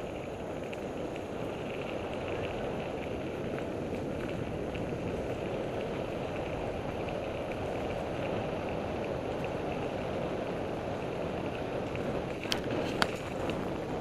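Mountain bike riding fast on a dirt forest trail: a steady rush of wind and tyre noise, with two sharp clacks near the end.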